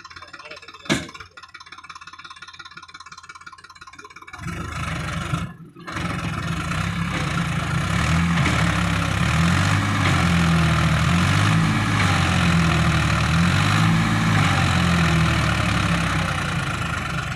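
Sonalika DI tractor's diesel engine running, quiet at first with a single sharp knock about a second in, then much louder from about four seconds in. After a brief dip it keeps running loud, its revs rising and falling.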